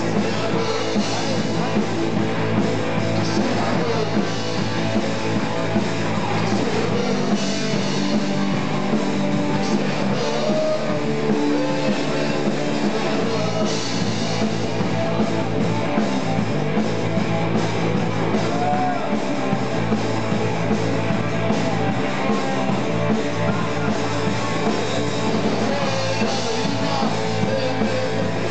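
Live rock band jamming: electric guitar playing over a drum kit, continuous and fairly loud.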